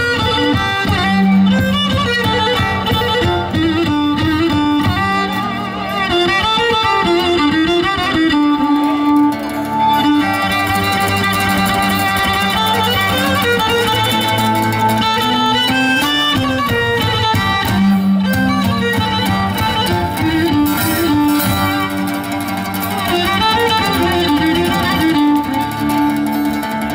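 Cretan lyra, a bowed folk fiddle, playing a quick ornamented melody over plucked laouto accompaniment, an instrumental passage with no singing.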